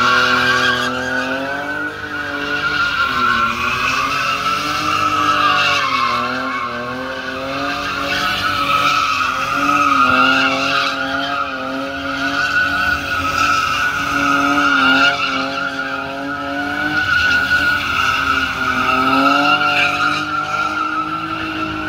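A car doing donuts: tyres squealing without a break while the engine revs, its pitch rising and falling over and over as the throttle is worked.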